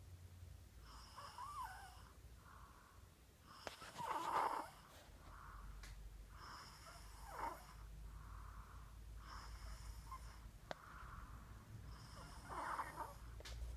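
A person snoring in sleep, one snore about every three seconds, the loudest about four seconds in.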